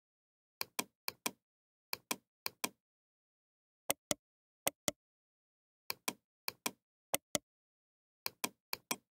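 Computer mouse button clicking about a dozen times at uneven intervals. Each click is a sharp press followed by a release about a fifth of a second later.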